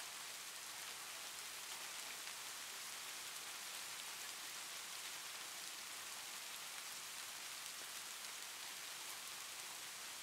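Steady hiss like falling rain, heavier in the high end, with faint scattered ticks of drops.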